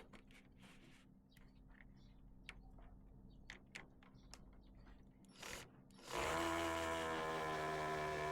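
Scattered light clicks and knocks. Then, about six seconds in, a power tool's motor starts and runs steadily, its pitch sagging slightly as if under load.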